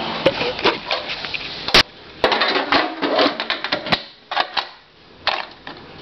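Handling clicks and knocks of a 1949 Empire Aristocrat portable typewriter's case lid being fitted and latched shut: irregular clatter with one sharp click just under two seconds in, then a few quieter knocks.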